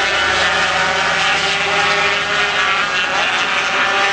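Several 250cc two-stroke Grand Prix racing motorcycles running hard at high revs in a group, their engine notes overlapping.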